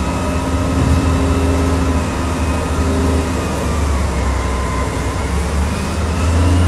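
Big diesel engines of a Caterpillar wheel loader and a Caterpillar haul truck running with a loud, steady low drone while the loader tips a bucket of stone into the truck's bed.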